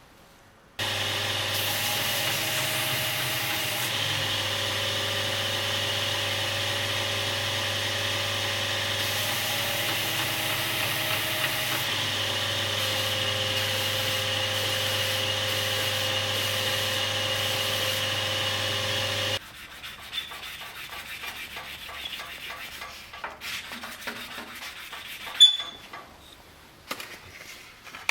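Electric sanding machine running steadily as a workpiece is sanded on it, then switched off abruptly about two-thirds of the way through. Quieter handling noise with small clicks follows, with one sharp click.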